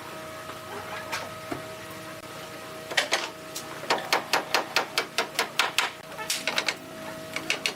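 Rapid runs of sharp tool strikes on timber, about four or five a second, starting about three seconds in, over a faint steady hum.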